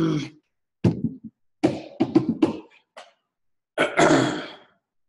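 A man's voice in about five short bursts of non-word vocal sounds, with silent gaps between them.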